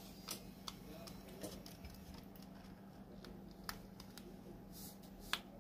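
Scattered light clicks and taps over a steady low electrical hum, with the sharpest click near the end.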